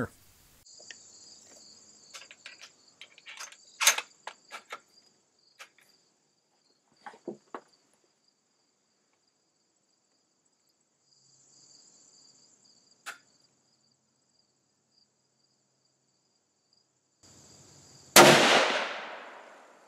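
Clicks and knocks of a Remington 700 bolt-action rifle in .308 being loaded and handled, then one loud shot near the end whose report fades away over a second or so: the first sighting-in round. Insects chirp steadily in the background.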